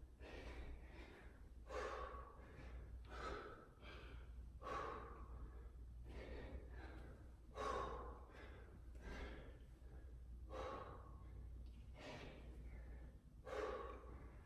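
A man breathing hard from exertion, a heavy breath about every second and a half, with a low steady hum underneath.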